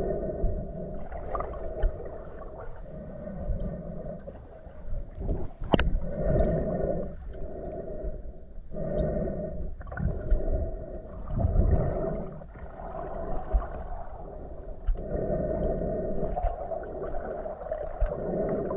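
Muffled underwater sound around a submerged GoPro: water gurgling and sloshing in irregular swells every second or two, with a sharp click about six seconds in.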